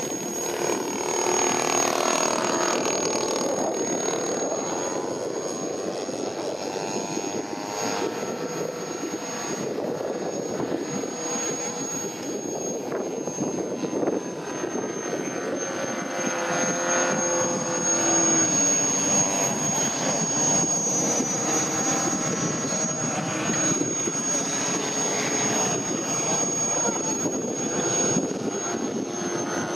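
Kolm four-stroke boxer engine of a clipped-wing Cub model airplane running in flight with its propeller. Its pitch glides down as the plane passes about two seconds in, then shifts again with turns and throttle changes.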